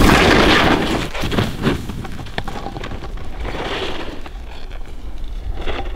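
A snowboard sliding and scraping over snow, mixed with wind rumbling on the microphone. It is loudest for about the first second, then settles to a fainter wind noise with scattered small crunches.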